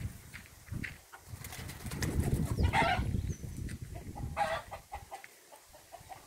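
Birds calling, with two short rough calls about three and four and a half seconds in, over a low rumble on the microphone.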